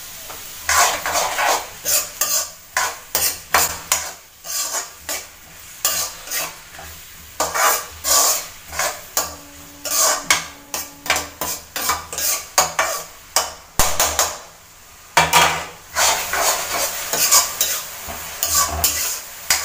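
Metal ladle stirring and scraping chopped onions around a metal kadai in quick repeated strokes, with the sizzle of the onions frying in oil. There is a short lull about fourteen seconds in. The onions are being sautéed with salt until soft.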